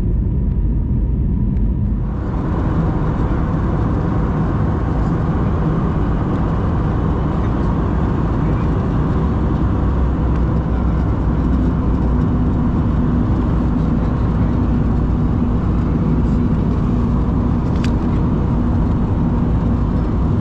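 Steady cabin noise of an Airbus A320neo in flight: an even roar of engines and airflow, heaviest in the low rumble. A steady low hum joins about halfway through.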